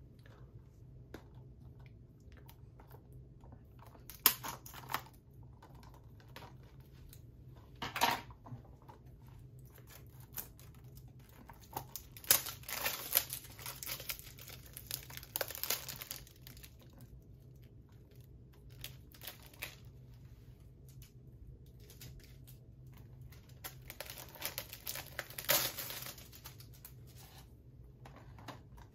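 Plastic wrapping on a Blu-ray case crinkling and tearing as it is pulled open, in separate bursts: short ones about four and eight seconds in, a longer stretch of crackling in the middle, and another near the end.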